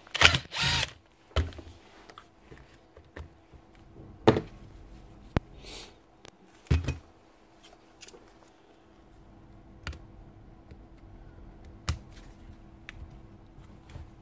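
Plastic scraping and clicking as the rear motor cap of a Makita BHP451 cordless drill is pried off with a screwdriver to reach the brushes. A loud scraping snap comes in the first second, followed by scattered sharp clicks and taps of plastic parts and the screwdriver.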